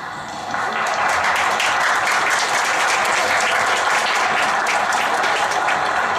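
An audience applauding: many hands clapping together, swelling up within the first second and then holding steady.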